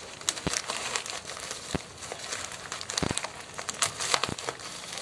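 Plastic parcel packaging being handled and cut open with a knife: crinkling and crackling with scattered sharp clicks and snaps.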